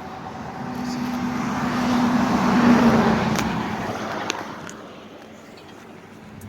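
A car driving past: its engine and tyre noise swell to a peak about two and a half seconds in, then fade away.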